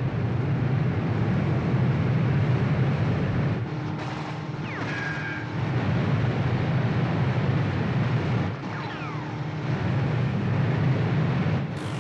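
Steady roar of a large waterfall, masses of water pouring over the falls and through rapids. It drops a little for a second or two twice, about four and about eight and a half seconds in.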